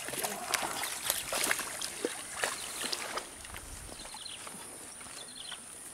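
Hooked snakehead thrashing and splashing at the water's surface, a fast run of splashes for about three seconds, then quieter sloshing as it is played on the rod.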